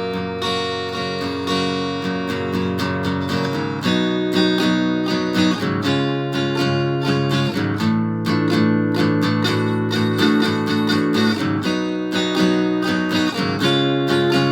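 Acoustic guitar with a Bartolini 3AV soundhole pickup, tuned a half step down and played through a BOSS DS-1 distortion pedal into an amp, strumming chords that ring out and change every second or two.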